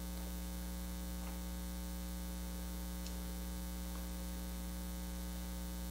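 Steady electrical mains hum carried in the sound system's audio feed, a low hum with a buzzy edge that does not change.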